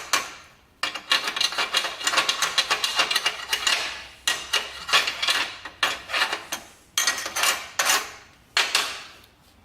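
Slag being cleaned off a fresh flux-core weld bead: rapid metal-on-metal strikes and scrubbing strokes in bursts of a second or so, with short pauses between them.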